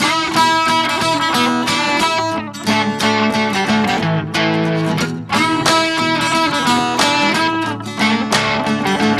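Background music: plucked guitar with a steady rhythm.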